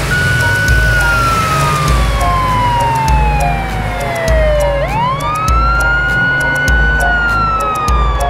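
Police car siren wailing in one slow cycle: a tone that falls steadily from high to low, sweeps quickly back up a little after halfway, and starts falling again near the end. Background music with a steady bass beat plays underneath.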